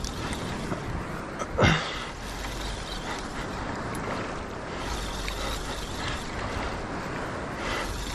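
Shimano Twin Power 14000 spinning reel being cranked under the load of a hooked fish, over a steady noise of wind and sea. One short falling sound about a second and a half in is the loudest moment.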